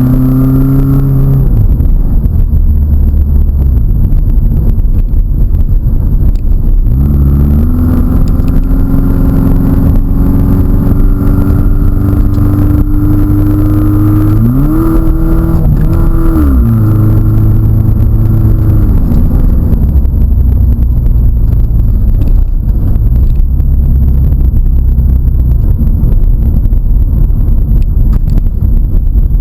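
A vehicle engine running loudly under load, its revs climbing about seven seconds in, surging higher around fifteen seconds, then dropping back and running lower through the second half.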